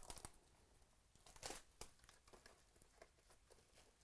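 Faint crinkling of a clear plastic card-pack wrapper as trading cards are handled and lifted out of it, in scattered short crackles that are strongest about one and a half seconds in.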